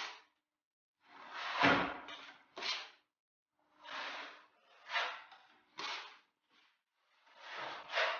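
Steel plastering knives scraping against each other and the bucket as filler compound is loaded and worked, then spread on the wall: a series of short rasping scrapes, about one a second, with brief silences between them.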